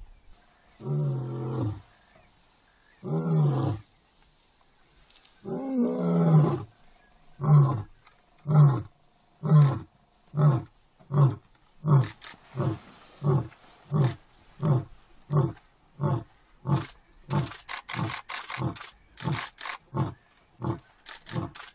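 Male African lion roaring: three long moaning roars, then a run of more than twenty short grunts that come faster and closer together.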